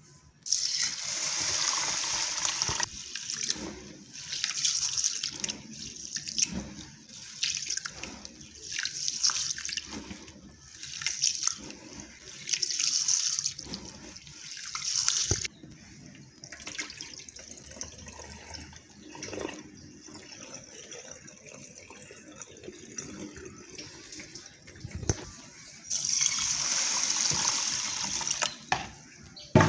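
Water pouring into a plastic bowl of rice, then hands swishing and rubbing the rice in the water in repeated swells about every two seconds, and water pouring in again near the end: rice being washed.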